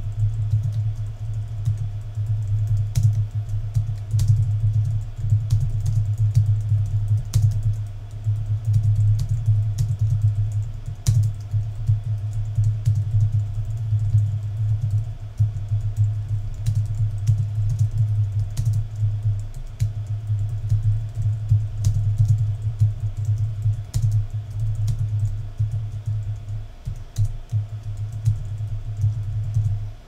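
Continuous typing on a Logitech Craft keyboard: a steady run of rapid, not super loud key clicks, over background music with a heavy bass line.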